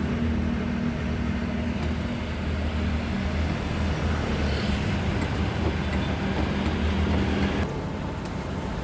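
A steady low motor hum over a noisy background, which drops away abruptly near the end.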